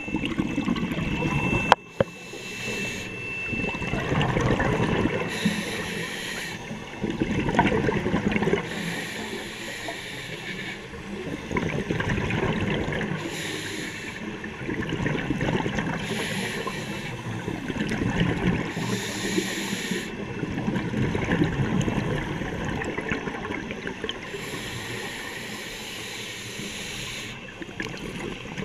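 Scuba diver breathing through a regulator underwater: a hiss on each inhale alternating with a bubbling rumble on each exhale, repeating about every three seconds. A single sharp knock about two seconds in.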